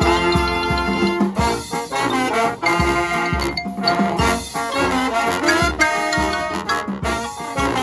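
Live brass band playing: trombones and trumpets carrying the tune over a regular low beat.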